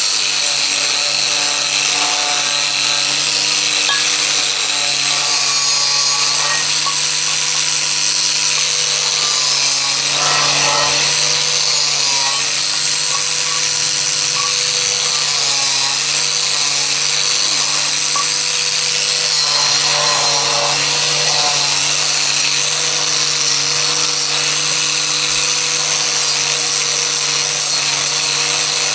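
A power tool running steadily: its motor hums at a constant pitch under a loud, even hiss as it works material.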